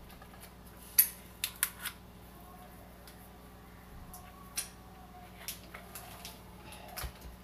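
A few light clicks and taps as hands handle a plastic chocolate mould and piping cone, filling the cavities. A low steady hum runs underneath.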